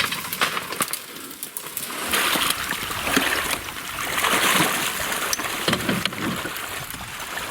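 Water splashing and sloshing in surges with scattered sharp clicks, as sleds are dragged and waded through flooded willows.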